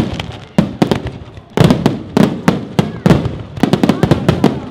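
Aerial fireworks bursting overhead: many sharp bangs and crackles in quick clusters, with a short lull about a second in and then a dense run of rapid bangs.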